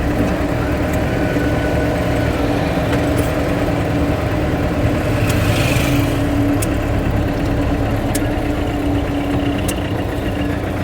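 Motor vehicle engine running steadily, a constant low hum with a few light clicks over it.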